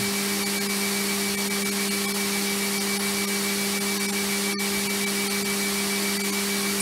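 DMG Mori DuraVertical 1035eco machining centre's spindle running steadily at its top speed of 12,000 RPM, spinning free without cutting. It makes one constant, unchanging pitch over a hiss.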